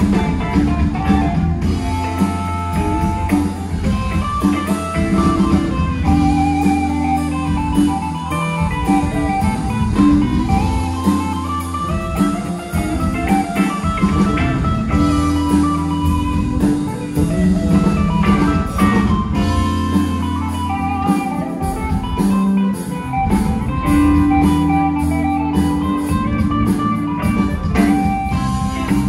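Live band playing a blues-rock number: an electric guitar lead line over held bass notes and drums with cymbals.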